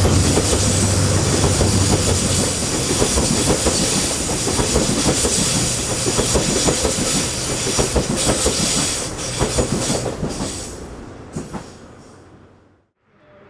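The coaches of the 'Seven Stars in Kyushu' cruise train rolling past, wheels clattering over the rail joints. The noise dies away to near silence near the end as the last car leaves.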